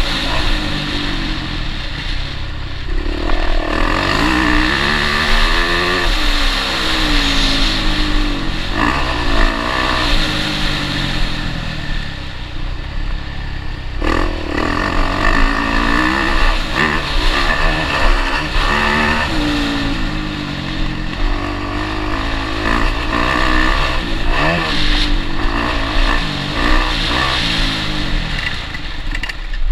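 Dirt bike engine heard from on board, its pitch rising and falling again and again as the rider throttles up and shifts along the trail.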